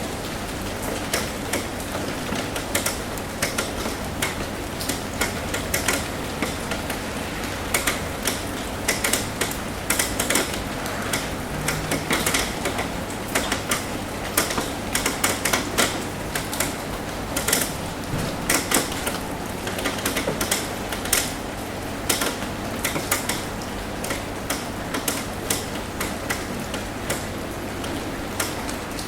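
Rain tapping on a roof: a steady patter with frequent, irregular sharp taps of drops.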